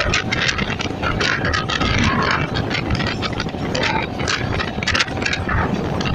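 EMU electric suburban train running at speed: a loud, steady rumble and rush of wheels on the rails, broken by irregular clacks and rattles.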